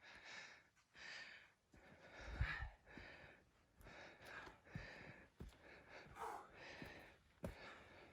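A hiker breathing hard on a steep uphill climb, soft panting puffs at about one a second, with a few faint low thuds.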